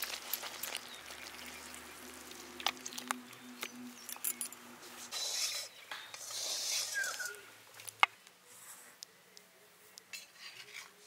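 Fish curry being tipped and scraped out of a metal kadai into a terracotta bowl, with a steel spoon and the pan scraping and clinking against the pot. There are scattered clinks, a stretch of scraping around the middle, and one sharp clink about eight seconds in.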